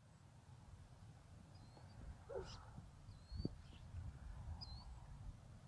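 Faint outdoor ambience: low wind noise on the microphone and a few short, high bird chirps, with a soft thump about three and a half seconds in.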